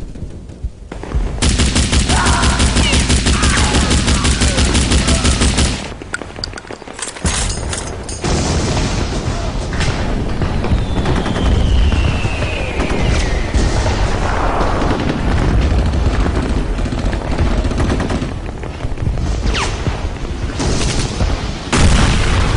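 Battle sounds of machine-gun fire: a rapid, steady burst for several seconds, then continuing gunfire with booms and scattered cracks. A falling whistle passes through the middle.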